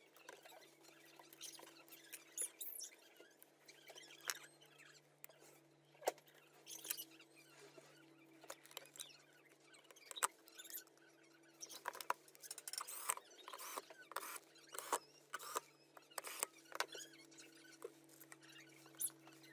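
Hands fitting parts of a Marshall Stanmore speaker back together: scattered small clicks, taps and scrapes, irregular and busier in the second half, over a faint steady hum.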